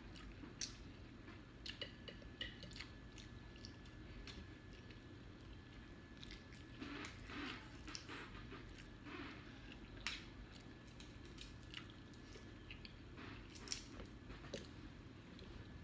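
Quiet chewing and mouth sounds of people eating seafood by hand, with scattered small clicks and crackles from shrimp shells being peeled.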